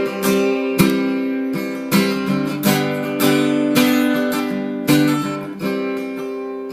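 Acoustic guitar strumming chords in an instrumental break between sung lines, the last chord left to ring and fade near the end.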